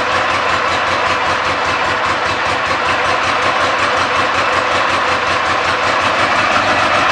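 A Dnepr MT-10-36 motorcycle's flat-twin engine running at idle from a cold start, with fast, even firing pulses. It runs unevenly ("в рознобой"), a fault the owner goes on to trace.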